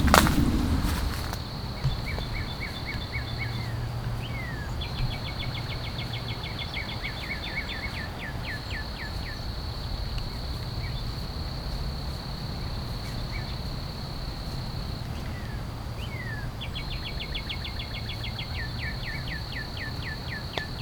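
Outdoor spring ambience: a steady high-pitched insect drone that breaks off briefly a few times, and a small bird singing rapid strings of short notes in several bouts. Under it runs a low steady rumble, and there is a brief knock at the very start.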